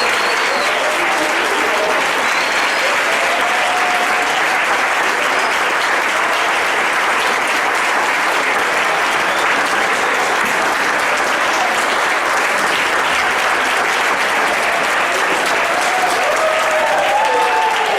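A congregation applauding steadily, with a few voices calling out over the clapping near the start and near the end.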